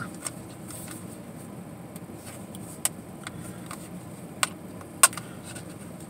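A small clear plastic snap-lid box being handled and opened, giving a few sharp plastic clicks, the loudest about five seconds in, over a steady hum inside a car.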